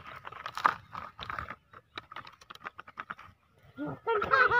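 A quick run of small clicks and scrapes as a plastic toy excavator's bucket digs into dry soil and tips it into a plastic toy dump truck. A voice starts near the end.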